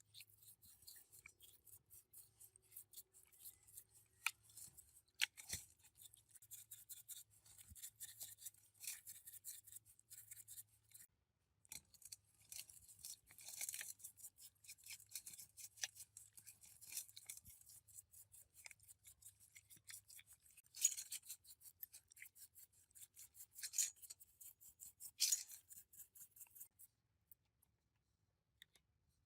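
Quiet hand work on small parts: rapid light clicks and short scraping scratches, a few of them louder, over a faint low hum that stops about two thirds of the way in.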